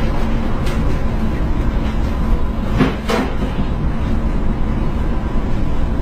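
Steady low rumble of storm wind and sea aboard a container ship pitching in heavy seas, with a brief double knock about three seconds in.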